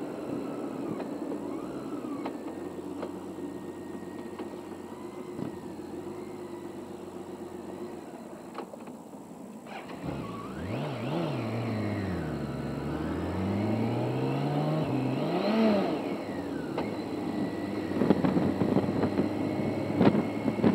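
Touring motorcycle's inline-six engine and road noise while riding. Its pitch falls as the bike slows for a roundabout, then climbs as it pulls away and drops again. Irregular knocks near the end.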